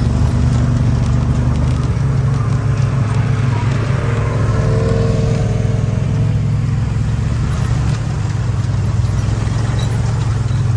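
Motor vehicle engine running steadily with a loud low drone, and a fainter engine note rising and fading briefly around the middle.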